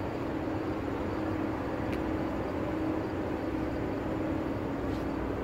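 Steady outdoor city background noise with a constant low machinery hum running underneath, and two faint ticks.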